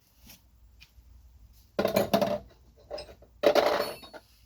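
Metal wrenches clattering and clinking together in two short bursts, the second ending in a brief metallic ring, as they are handled and sorted through.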